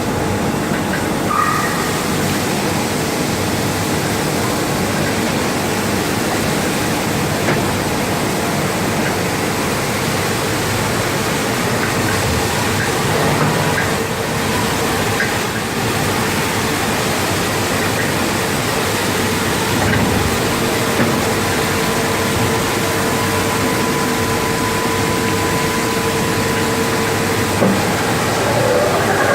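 A grinding machine running with a steady, even mechanical rush. A faint steady whine becomes clearer in the second half.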